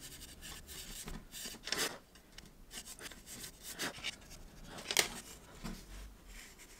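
Steel wool rubbed in short, irregular scratchy strokes along the edge of a spray-painted metal typewriter panel, tidying up a flaky patch of paint; one stroke about five seconds in is sharper than the rest.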